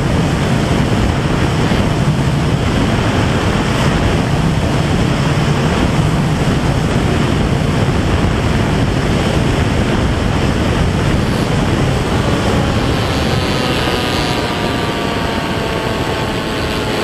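Steady rush of wind over an FPV flying wing's onboard camera, with its motor and propeller running. About twelve seconds in, a whine comes through and slowly drops in pitch.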